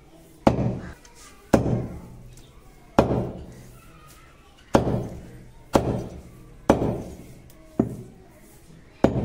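Heavy steel meat cleaver chopping raw chicken on a wooden log chopping block: eight sharp chops about a second apart, each a heavy thud that dies away quickly.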